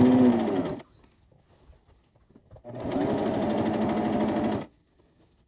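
Brother XL-2600i sewing machine stitching a hem in two short runs: the first stops under a second in, and the second runs for about two seconds from near the middle.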